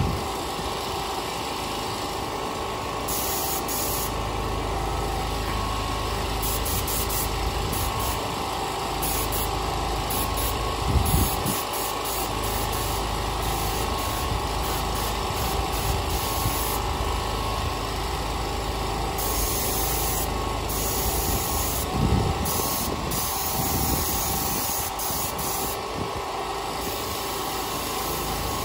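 Compressed-air paint spray gun hissing in stretches of a few seconds as paint goes onto a tractor engine block, over the steady running of the air compressor that feeds it. A couple of brief knocks are heard.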